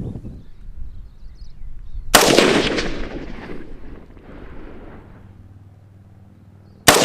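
Two gunshots about five seconds apart, each a sharp crack followed by a long rolling echo that dies away over a second or more.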